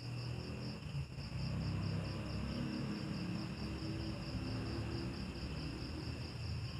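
Crickets chirping in a steady, evenly pulsing high trill, under a louder low rumble that starts suddenly.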